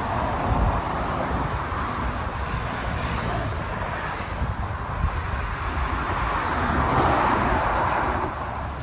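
Road traffic going by on a roadway, with wind rumbling on the microphone while riding; one vehicle passes more loudly about seven seconds in.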